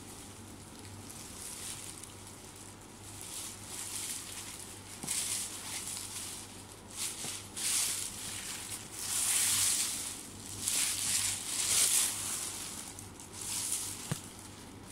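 Plastic garbage-bag dress rustling and crinkling as the wearer moves, in irregular bursts that grow busier and louder in the second half, over a low steady hum.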